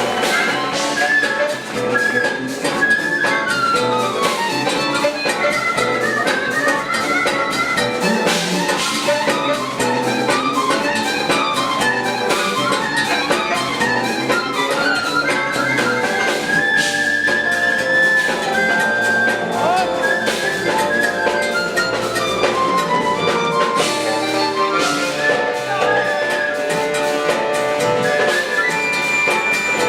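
Live jazz-fusion band playing instrumental music, with a drum kit under fast runs of melody notes that climb and fall.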